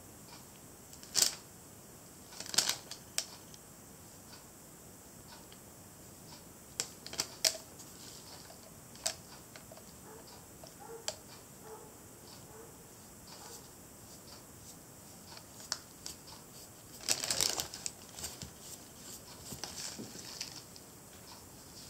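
Scattered faint clicks and taps from latex-gloved hands and a paintbrush handling a small painted elephant figurine, with a longer rustle about 17 seconds in.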